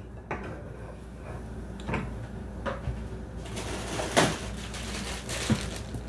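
A few scattered knocks and clatters, with a rustling hiss through the second half: things being handled and moved about in a kitchen.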